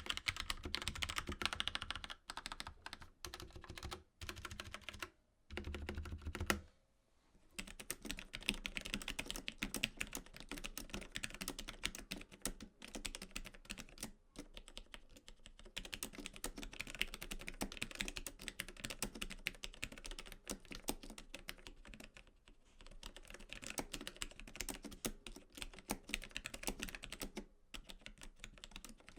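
Typing on a mechanical keyboard with linear switches: a rapid, continuous run of keystroke clacks, broken by a short pause about seven seconds in.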